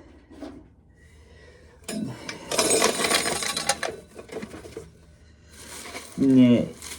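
Dried corn being shelled: a burst of hard kernels rattling and clattering into a pail about two seconds in, trailing off into lighter rattles.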